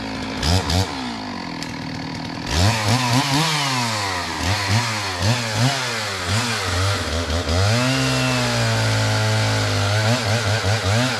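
Stihl MS 660 two-stroke chainsaw running. A couple of quick revs come about half a second in, and from about two and a half seconds the throttle is blipped up and down in rapid bursts. Near eight seconds it is held at high revs for about two seconds with the bar laid on a fallen tree trunk, then quick blips return near the end.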